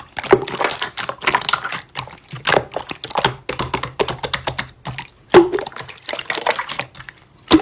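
Slime being squeezed and poked by hand, giving a quick irregular run of crisp, wet clicks and pops.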